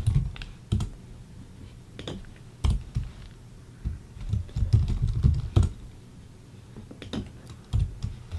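Typing on a computer keyboard, in about four short bursts of keystrokes with pauses between them, as layer names are typed in.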